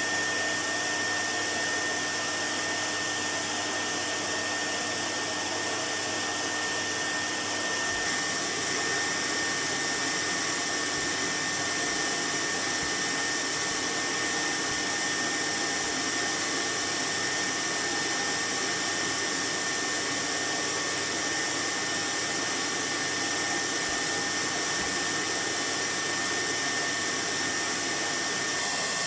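1973 Goblin 702 cylinder vacuum cleaner's bypass motor running steadily: a constant rush of air with a steady high-pitched whine.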